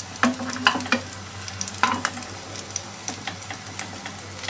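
Potato patties (aloo tikki) shallow-frying in oil in a pan on low heat: a steady sizzle with sharp crackles and pops every half second or so.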